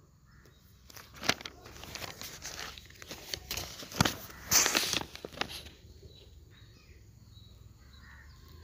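A spoon scraping and stirring a crumbly rice-flour mixture in a pan, with irregular scrapes and knocks. After about five and a half seconds the stirring stops and it goes quiet.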